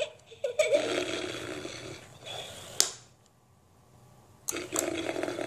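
Toy bear's recorded snoring sound playing: a rough snore for about three seconds, a pause of near silence for about a second and a half, then the snoring starts again. A sharp click comes just before the pause.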